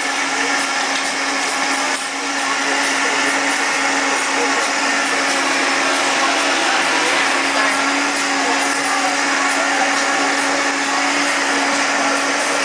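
Countertop bar blender running steadily, blending a drink, with a steady motor hum that steps up in level about two seconds in.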